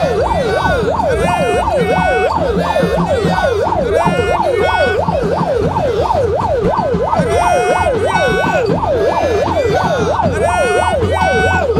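Electronic siren sounding a fast yelp, its pitch sweeping up and down about three times a second without a break, over a steady low hum.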